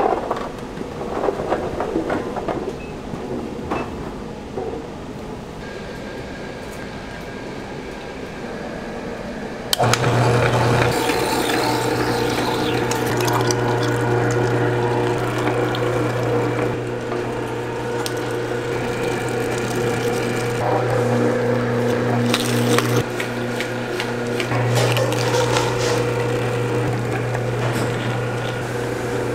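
Restaurant kitchen work: clatter and running-water handling sounds, then, about ten seconds in, a steady low machine hum starts suddenly and runs on under the handling noises.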